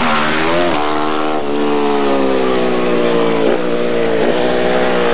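Superbike racing motorcycle engine at high revs, climbing in pitch and dropping sharply at each of several quick gear changes, the note sinking slowly in between as the bike passes.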